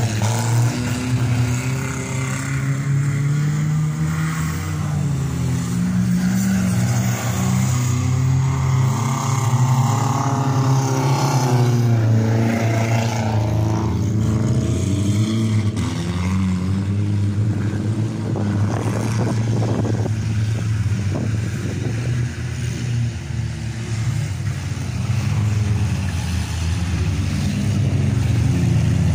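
Engines of several demolition derby cars running and revving over a steady low engine drone, with the pitch rising and falling.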